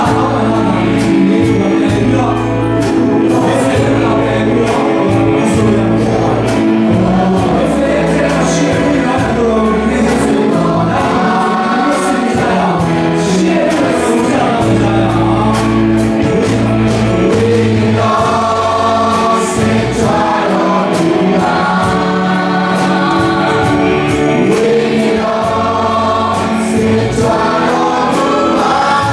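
Worship team of several singers on microphones singing a praise and worship song together with a live band: bass notes under the voices and drums keeping time.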